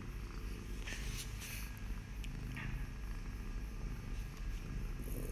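A kitten purring steadily while it clutches and play-bites a hand, with a few brief soft scuffing noises from the struggle.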